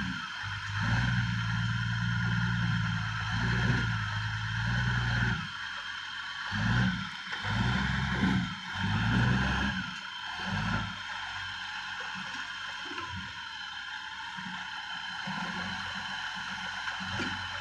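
Heavy diesel engine running, steady for about five seconds and then surging in short, uneven bursts before settling lower, with a steady high-pitched whine throughout.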